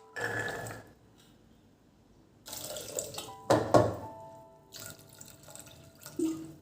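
Water running from a tap into a sink in short spells, with a couple of sharp knocks partway through and a dull thud near the end. Soft background music plays underneath.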